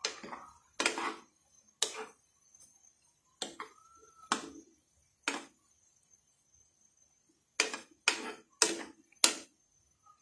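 A spoon stirring boiling macaroni, scraping and knocking against a non-stick frying pan in about ten short, uneven strokes, with a bunch of quick ones near the end.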